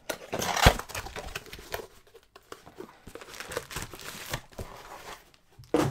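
Cardboard shipping box being handled and opened by hand: irregular rustling and crinkling of cardboard and packing, with small knocks and scrapes, loudest with a knock about half a second in.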